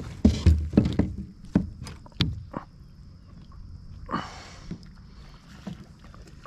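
Knocks, clicks and thumps of a fishing rod and hands against a plastic sit-on-top kayak, busiest in the first few seconds. There is a short rushing noise about four seconds in.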